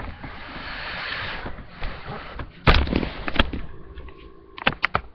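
Rustling, then a few sharp knocks and thumps: two loud ones about three seconds in and a quick cluster of them near the end.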